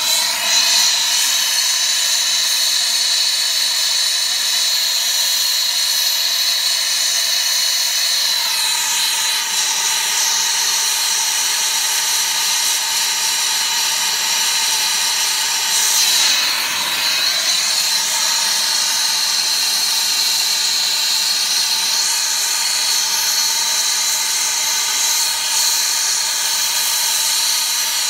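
Brazing torch flame hissing steadily as it heats the copper refrigerant line joints on a replacement compressor, with the sound shifting briefly twice as the torch is moved.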